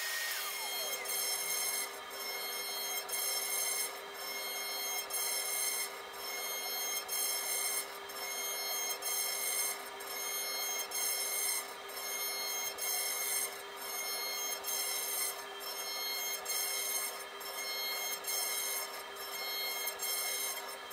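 CNC router spindle whining steadily while a fine tapered bit mills a 2.5D relief in softwood on a finishing pass. The cutting noise rises and falls every second or two as the bit sweeps back and forth across the carving.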